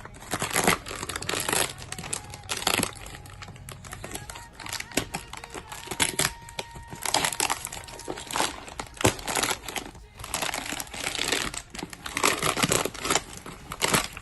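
Package wrapping crinkling and rustling in irregular bursts as a parcel is unwrapped by hand.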